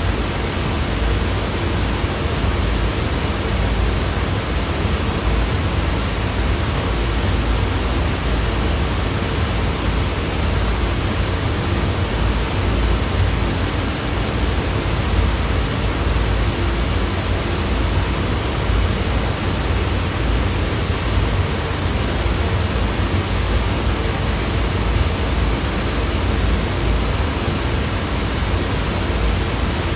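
Steady white-noise sound effect: a constant, even rushing hiss, heavier in the low end, that does not change.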